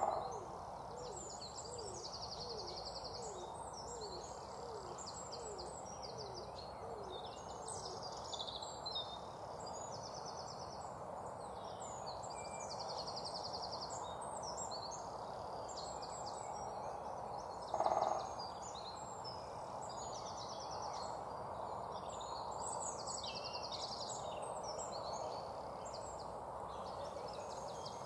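Songbirds chirping and trilling throughout over a steady low background hum. For the first eight seconds a low call repeats about twice a second, and there are two brief louder sounds, one at the very start and one about halfway through.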